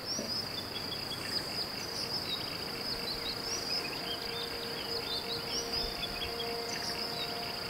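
Insects trilling in one steady, high, continuous tone, with short high chirps scattered through it.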